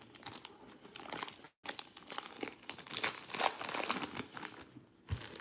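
Foil trading-card pack wrapper of a 2019-20 Revolution basketball pack being torn open and crinkled between the fingers, a dense crackling that grows louder past the middle, with a soft low knock near the end.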